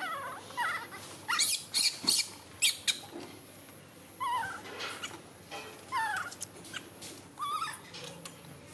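Baby macaques calling: a string of short calls that fall in pitch, repeated every second or so, with a few sharp clicks in between.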